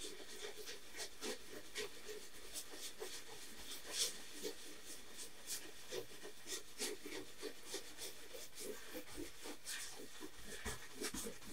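A wide flat brush scrubbing and dabbing oil paint onto a stretched canvas: many short, irregular strokes.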